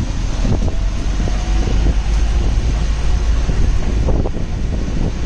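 Steady low rumble of a shuttle bus in motion, engine and road noise with wind buffeting the microphone.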